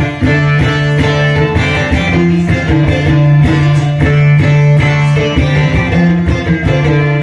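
Bağlama (long-necked Turkish saz) music for the semah dance, strummed and plucked in a steady, even rhythm.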